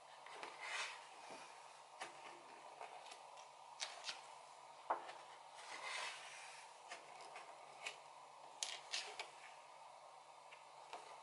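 Pages of a photobook turned by hand: faint paper swishes, about a second in and again around six seconds, with scattered light taps and clicks of paper and fingers.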